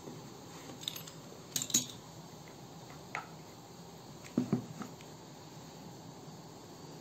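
A few light clicks and knocks of a metal wheel cutter being handled and set down on a wooden board, followed by a couple of dull thumps about four and a half seconds in.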